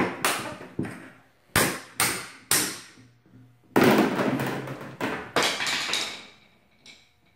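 A series of sharp metallic clanks and bangs from a thin sheet-metal bathroom partition panel being pried apart with a screwdriver, each one ringing out. The loudest comes about four seconds in and rings on for about two seconds.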